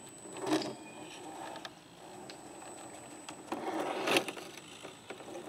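Axial SCX10 II scale RC crawler's electric motor and gear drivetrain whirring as it crawls over boulders, in two short bursts of throttle, about half a second in and again from about three and a half seconds, with tyres scraping on the rock.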